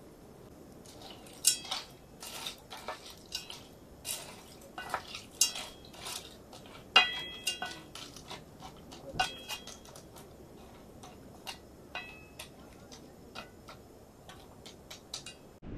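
A wooden spoon stirring shell pasta in juice in an aluminium pot, knocking and scraping irregularly against the pot. A few of the knocks ring briefly. The knocks are loudest in the first half and grow lighter and sparser later.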